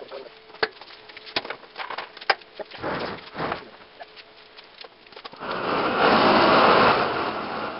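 Several sharp metal clanks and knocks as the steel tank and its cut-out door are handled, then a long-handled gas torch flame starts about five seconds in and hisses loudly, the loudest sound, easing off near the end.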